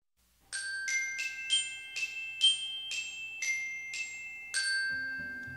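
Chiming intro jingle: about ten bell-like notes struck one after another, each ringing and fading, the last one held longest.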